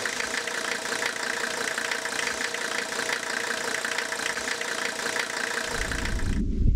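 An engine running steadily, which cuts off abruptly about six seconds in. A low rumble comes in just before the cut-off.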